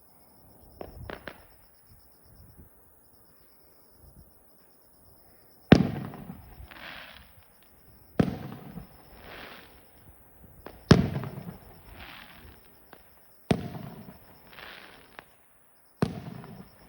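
Aerial fireworks bursting at a distance: five booms about two and a half seconds apart, each rolling off and followed by a crackling hiss, after a couple of faint pops near the start.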